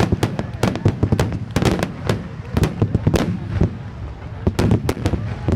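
Fireworks shells bursting in rapid succession: a dense string of sharp bangs and crackles that thins out a little past the middle, then picks up again with more bangs near the end.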